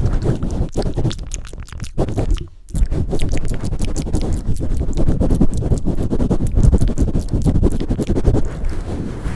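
Close-up ASMR handling sounds right at the microphone: a dense run of scratchy clicks and rubbing over a muffled low rumble, with a brief dip about two and a half seconds in.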